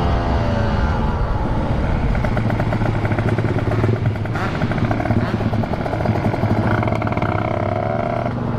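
Kawasaki Ninja 150RR two-stroke motorcycle engine running on the move, its note rising and falling with the throttle.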